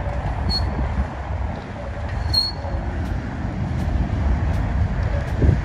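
Low, uneven rumble of wind buffeting the microphone of a phone carried on a moving bicycle, with two brief sharp clicks.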